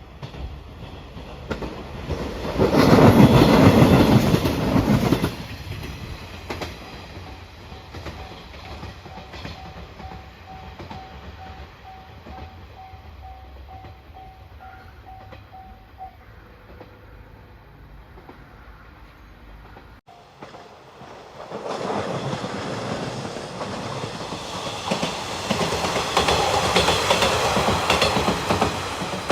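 A train passes over a level crossing, wheels clacking over the rail joints, loudest for about three seconds near the start. The crossing's warning bell then dings in an even repeating rhythm and stops about halfway through. After an abrupt change, another train approaches and passes, growing louder toward the end.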